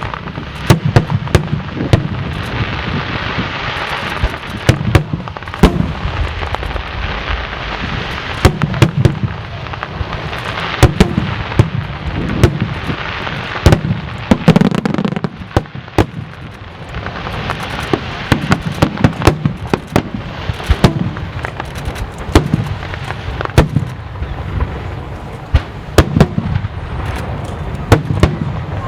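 Aerial fireworks going off in a dense, continuous barrage: many sharp bangs at irregular intervals over a steady crackling hiss and low rumble.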